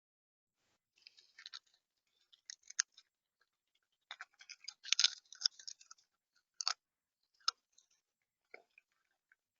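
Irregular crunching and sharp clicks right at the feeder-camera microphone, typical of a visitor pecking at and cracking seed in the feeder tray. The clicks come in scattered groups, densest and loudest about halfway through, then single clicks.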